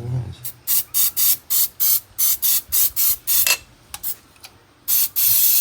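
Aerosol can of engine starting fluid spraying: a rapid run of short hissing squirts, about four a second, then one longer continuous spray near the end, used to get a long-stored engine to fire.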